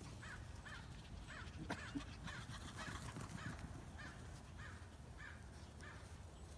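A faint, steady run of short animal calls, about two a second.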